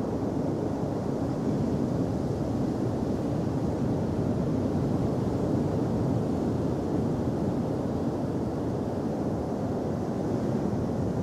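Steady rushing noise of wind on the microphone mixed with ocean surf breaking on the beach, with no engine or motor tone in it.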